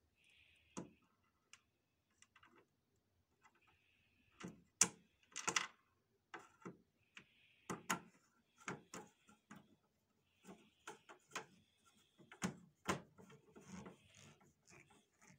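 Irregular clicks, taps and rubbing of hands working on a photocopier's plastic panels and parts, with a few sharper knocks about five, eight and thirteen seconds in.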